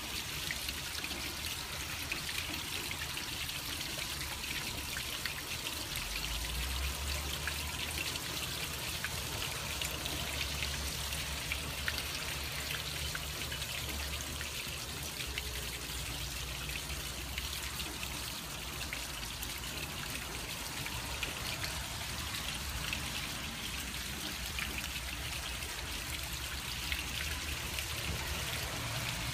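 Rainwater trickling and splashing down through the cups of a copper cup rain chain, with steady rain dripping around it.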